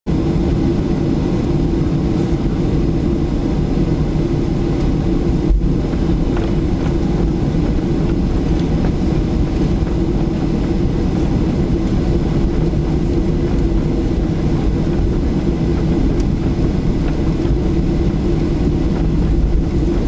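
Cabin noise in a Boeing 737-800 rolling on the ground: a steady drone from its CFM56 jet engines over a deep rumble of the wheels on the pavement.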